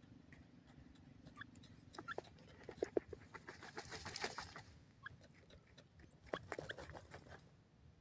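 Faint sounds from a francolin settled in loose dry soil: a few short soft clicks about two to three seconds in and again past six seconds, and a brief scratchy rustle about four seconds in.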